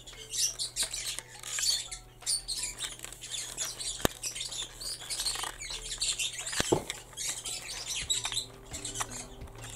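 Fingers handling a plastic Polly Pocket compact and pressing stickers onto it: small scratchy rustles and plastic clicks, with a sharper click about four seconds in and another near seven.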